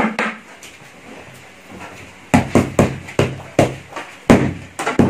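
Green plastic stick swung and smacked against wooden furniture: one sharp smack at the start, then about eight loud, sharp smacks in quick irregular succession from about halfway through.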